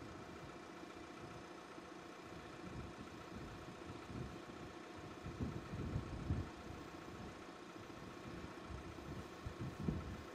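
Mercedes E 220d 4Matic's 2.0-litre four-cylinder turbodiesel idling, a steady low hum, with a few louder low rumbles around the middle and again near the end.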